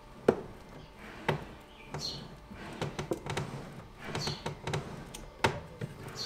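Handling noise inside an antique reed organ's wooden case: scattered sharp clicks and knocks of wood and metal, the loudest just after the start, another about a second later and one more near the end, with a couple of brief squeaks in between.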